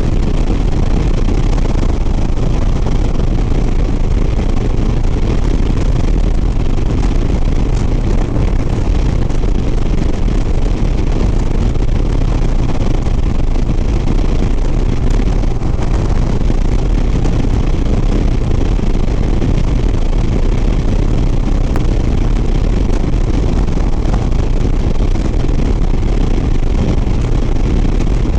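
Harley-Davidson Sport Glide's V-twin engine running steadily at highway cruising speed, with heavy wind rush over the rider's microphone.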